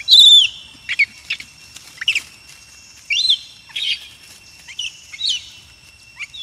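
Short high-pitched chirping calls, about eight of them with quick rises and falls in pitch, the first and loudest right at the start, over a faint steady high tone.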